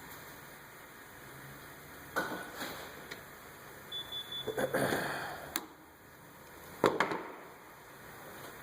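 Plastic push-pin clips and trim being pried and handled with small screwdrivers: a few sharp clicks and knocks with scraping, the loudest pair of snaps near the end.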